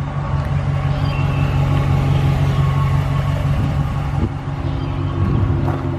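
Dodge Ram 1500's 5.7-litre Hemi V8 idling steadily, a low even hum, with a few light knocks in the second half.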